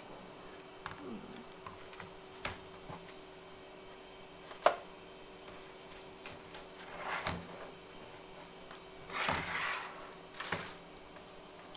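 Hands loading filament into a 3D printer's spool holder and feed: scattered light clicks and plastic rattles, one sharp click about halfway through, and two bursts of rustling near the end, over a faint steady hum.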